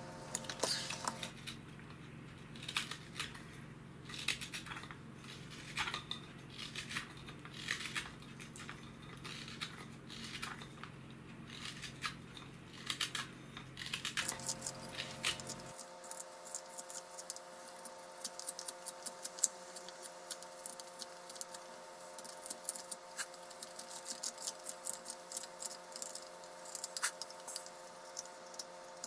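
Carving knives slicing thin shavings from a wooden spoon blank by hand, a hook knife hollowing the bowl and a straight knife shaping it. They make a string of short, irregular cutting strokes.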